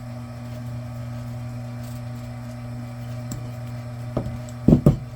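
Steady electric motor hum of a Vevor electric wire stripping machine running idle, with a few light knocks about four seconds in and two louder thumps near the end.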